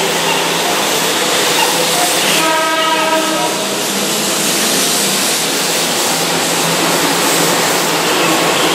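Keihan 2200 series electric train passing through the station at speed, with a loud, steady rush of wheel and running noise. About two and a half seconds in, its horn sounds for about a second.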